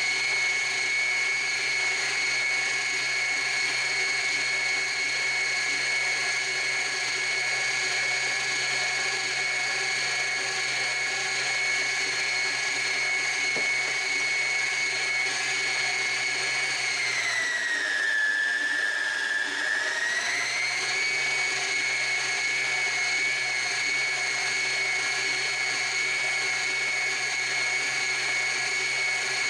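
Kenmore Elite Ovation tilt-head stand mixer running, beating pound cake batter with a steady high whine. About two-thirds of the way through, the pitch drops for a few seconds, then climbs back to where it was.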